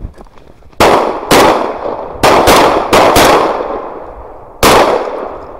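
Shotgun shots: seven in quick, irregular succession over about four seconds, a pair close together then a cluster of four and a last one near the end, each trailing off in an echo.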